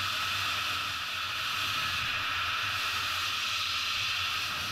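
A power tool running steadily, a continuous whirring hiss with a few fixed tones in it.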